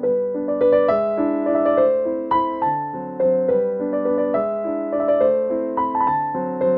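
Background piano music: a melody of struck notes that ring and fade, several a second.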